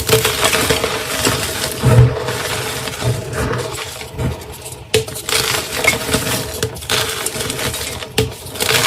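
Dyed gym chalk blocks being crushed, a continuous dry crunching and crumbling with sharper cracks about two, five and eight seconds in. A faint steady hum runs underneath.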